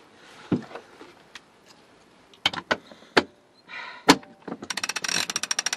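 Sailboat self-tailing winch: a few separate knocks and clicks as the handle is fitted into the winch top, then the pawls ratcheting in a rapid, even run of clicks as the handle is cranked, starting near the end.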